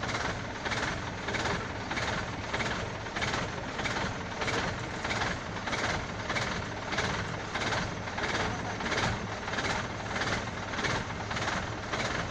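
A vehicle engine running steadily, with an even pulsing of about three beats a second.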